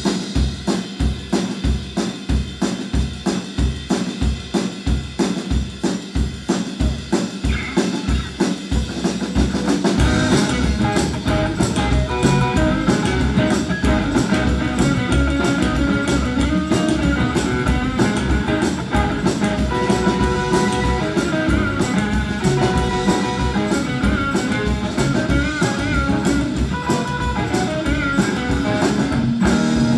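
Live rock and roll band playing an instrumental intro: a drum kit keeps a steady beat alone, about two strokes a second, and about ten seconds in the upright bass and guitars come in together.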